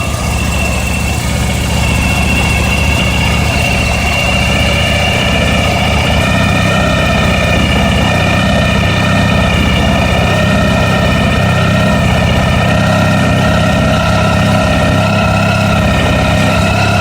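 Honda ST1100's V4 engine idling steadily with a rattling noise whose cause the owner is trying to track down.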